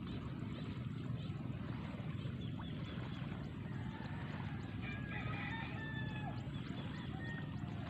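A steady low rumble, with a rooster crowing faintly about five seconds in.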